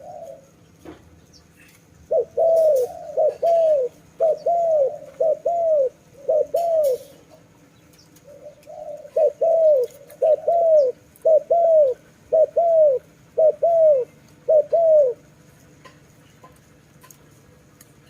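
A dove cooing: two runs of short, arched coos repeated in quick succession, the first starting about two seconds in and the second a couple of seconds after the first ends, then the calling stops for the last few seconds.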